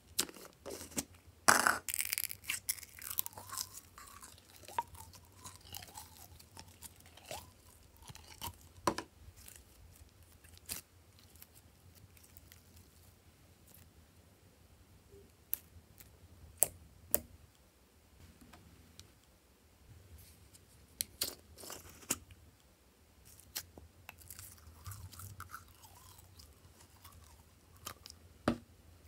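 Glossy slime being squeezed out of a plastic pot and dropped into a bowl of other slime: sticky crackling, squelching and sharp little clicks and pops. The loudest crackling comes about two seconds in as the pot is squeezed, with further scattered pops later.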